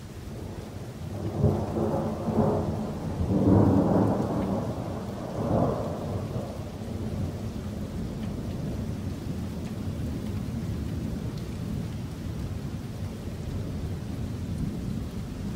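Thunder rolling in about a second in, with several loud peaks over the next five seconds, then a long low rumble over steady rain.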